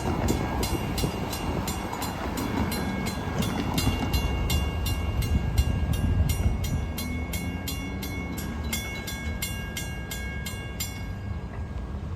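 Railroad grade-crossing warning bell ringing in quick, even strokes, about three a second, then stopping about 11 seconds in, the sign that the crossing is activated for an approaching train. A low rumble runs underneath.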